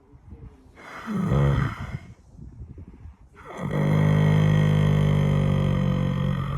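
Horse snoring: a shorter snore about a second in, then a long, steady snore that lasts about three seconds and is the loudest part.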